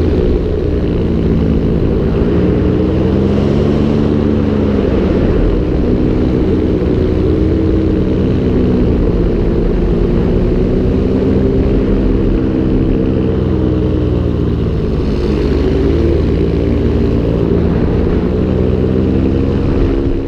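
A small propeller engine running steadily, its pitch drifting slowly up and down, over the rush of air.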